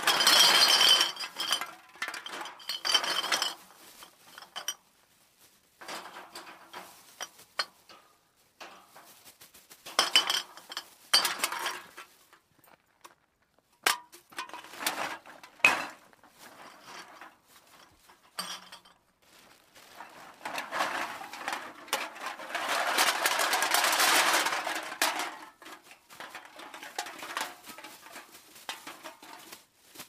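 Metal cans thrown down and clattering against one another, in a series of separate throws with a pause between each. Each throw gives a burst of jangling and rattling that dies away, and a longer, denser clatter comes about two-thirds of the way through.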